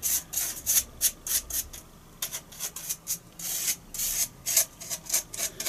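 Copydex glue brush stroking along the edge of a foam wing panel, a quick scratchy rubbing repeated about four or five times a second, with a short pause about two seconds in.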